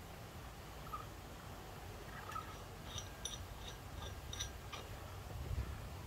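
Light clicks and a few short high-pitched squeaks, bunched about three to four and a half seconds in, as gloved hands work the drive belt and pulleys of a Honda ADV350's CVT.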